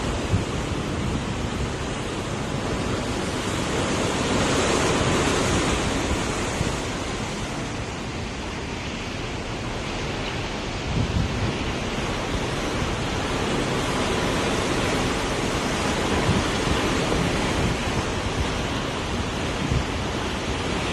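Wind buffeting the microphone over the rush of a choppy sea and a boat's foaming wake, a steady roar of noise that swells for a few seconds about a quarter of the way in.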